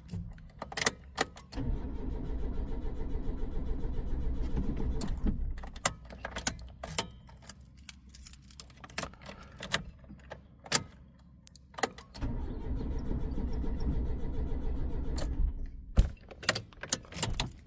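Mitsubishi 4G93 four-cylinder engine being cranked by its starter twice, each time for about four seconds, without catching: the intermittent crank-no-start fault. Keys jangle and click in the ignition before and between the attempts.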